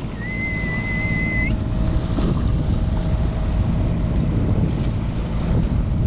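Wind buffeting the microphone over the rush of a boat's bow wave, with a faint steady hum underneath. Near the start a single high whistle holds for about a second, rising slightly as it ends.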